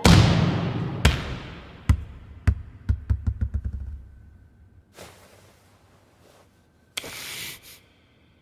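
A volleyball slams onto a wooden gym floor and bounces, the bounces coming quicker and fainter until it settles. A short rushing noise comes near the end.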